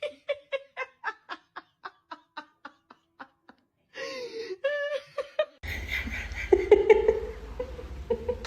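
A person laughing in a run of short ha-ha bursts that slow and fade over about three seconds. After a short gap come a brief gliding voice-like sound and a noisier stretch with a low hum.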